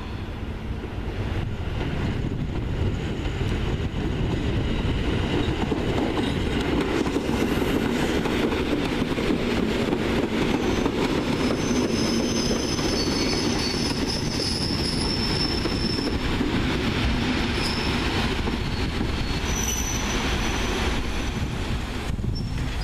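PKP EN71 electric multiple unit pulling into a station, its running noise growing loud as it comes alongside. About halfway through a high, steady squeal joins in as the train brakes to a stop.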